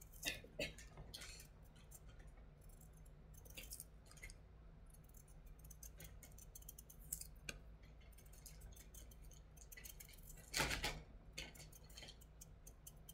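Paring knife peeling a chayote by hand: faint, scattered scrapes and clicks of the blade cutting through the skin, with a louder cluster about ten and a half seconds in, over a low steady hum.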